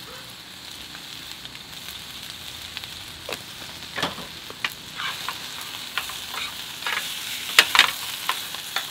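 Meat and onions sizzling in a frying pan over a portable gas stove, a steady hiss. Short clinks and scrapes join from a few seconds in, with tongs stirring against the pan near the end.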